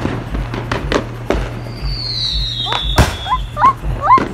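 Consumer fireworks going off: a rapid run of sharp bangs and crackles, with a high falling whistle about halfway through. Near the end come a string of short rising-and-falling chirps, about three a second.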